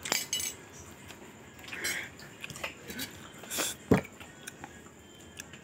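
Chewing food, with a few light clicks of cutlery against a plate; the sharpest click comes about four seconds in.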